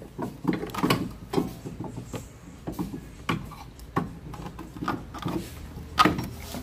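Irregular metallic clunks and knocks, about one every half second to second, as a front CV axle is shaken and pulled by hand to work it loose from the transmission. The loudest knock comes near the end.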